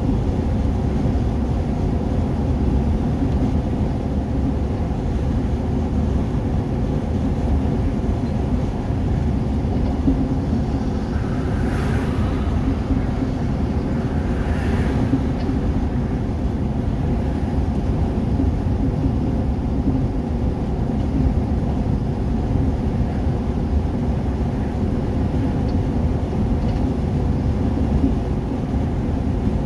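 Steady low rumble of road and engine noise inside a vehicle cruising at motorway speed, with two brief swells of higher-pitched noise about twelve and fifteen seconds in.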